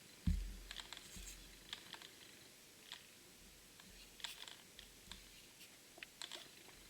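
Objects being handled at close range: scattered light clicks and taps, with one dull thump near the start.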